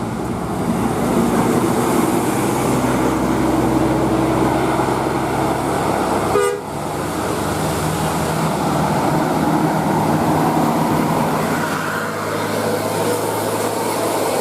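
A bus with its engine running sounds a multi-tone 'telolet' horn in held tones. The sound breaks sharply about six and a half seconds in, then the engine and horn tones carry on.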